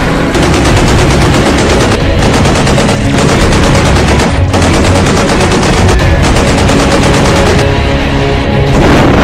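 Rapid machine-gun fire over background music, stopping near the end.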